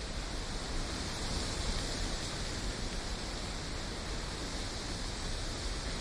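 Wind blowing steadily through trees with rustling leaves: an even hiss over a low rumble, with no separate sounds standing out.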